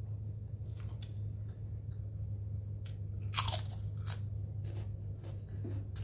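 A person chewing a mouthful of food with crisp crunches, the loudest about three and a half seconds in. A steady low hum runs underneath.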